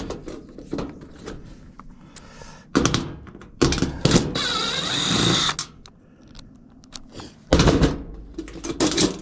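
Craftsman cordless drill-driver running for about two seconds to back out the terminal-block screws holding a dryer's power cord. Knocks from handling the metal and the cord come shortly before and again near the end.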